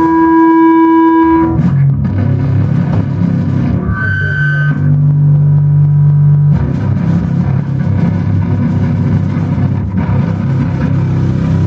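Loud live noise music: sustained, droning electric guitar and bass tones that shift every second or two over a dense low rumble.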